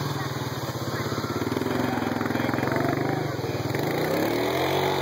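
Polaris RZR XP 900 side-by-side's twin-cylinder engine revving as it accelerates. Its pitch climbs over the first few seconds, then dips and rises again near the end as the machine drives into shallow water.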